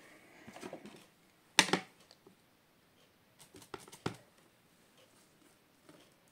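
Plastic clicks and taps of a stamp ink pad and clear acrylic stamp block being handled: a sharp double click a little over a second and a half in, the loudest sound, then a few lighter taps around three and a half to four seconds as the stamp is inked.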